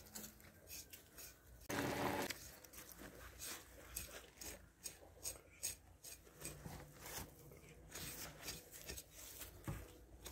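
Knife slicing through the skin and fat of a pig carcass: faint, irregular crackling and clicking cuts. A brief, louder sound comes about two seconds in.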